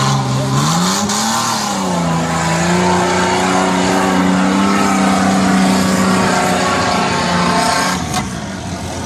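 An off-road SUV's engine revs up about a second in and is held at high revs under load as the vehicle climbs a steep sand dune. The engine eases off near the end.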